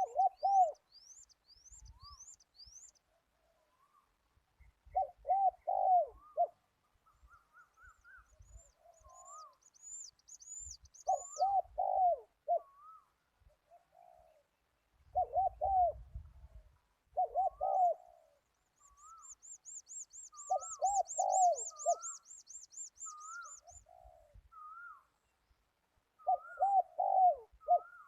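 Zebra dove cooing: a short rolling, bubbling coo phrase repeated about every five seconds. Other small birds chirp high over it, with a fast high trill about two-thirds of the way through.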